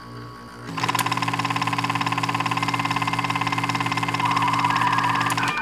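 Film projector running: a rapid, even clatter over a steady hum, coming in just under a second in after a quieter hum.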